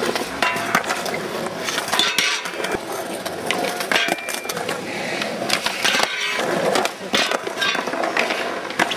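Skateboards rolling on concrete, with repeated sharp clacks of boards popping and landing and the boards sliding along a metal skatepark rail.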